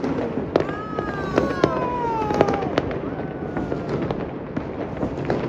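Many fireworks going off across a city: sharp cracks and bangs over a constant rumble of distant bursts, with a long falling whistle in the first half.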